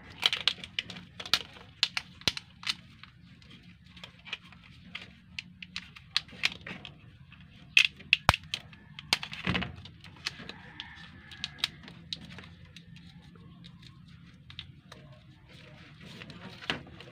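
Scattered sharp clicks and light snaps of small parts being handled, as wiring connectors and relays are fitted during vehicle wiring work, with a louder snap about eight seconds in.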